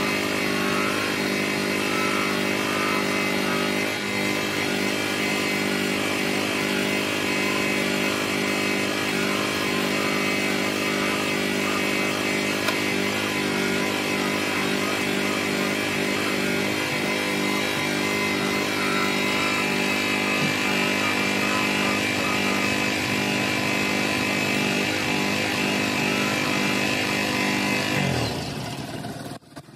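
Bench grinder motor with a red buffing wheel running steadily, humming, with a hiss as a plastic car headlight lens is polished against the wheel. Near the end the motor is switched off and winds down, its pitch falling.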